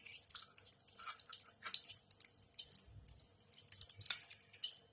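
Desi ghee heating in a pan, faint irregular crackling and spitting, with a brief click a little after four seconds in.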